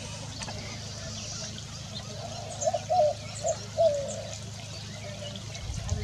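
Small birds chirping faintly over trickling, gurgling water, with a cluster of short burbling notes a few seconds in.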